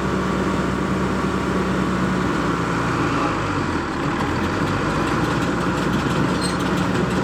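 Tractor engine running steadily, driving a big square hay baler.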